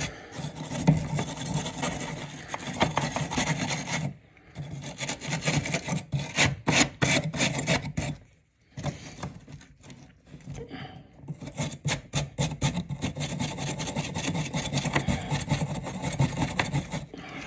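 Rapid back-and-forth scraping of an abrasive on the end of a copper water supply pipe, scouring the stub-out clean for a new compression angle stop. The scrubbing stops briefly about four seconds in and goes thinner for a few seconds past the middle before picking up again.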